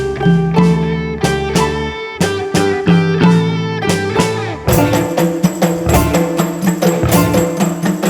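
Live ensemble music: a plucked-string melody of struck, fading notes over a low drone, with percussion strokes coming in thicker a little past halfway.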